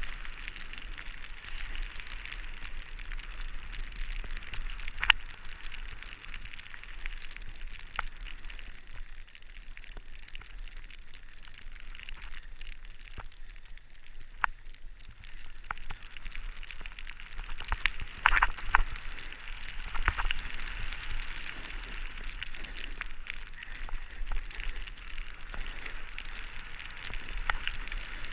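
Snowboard sliding downhill over snow: a steady hiss of the base and edges on the snow, with sharp clicks now and then and a run of louder scrapes about two-thirds of the way through.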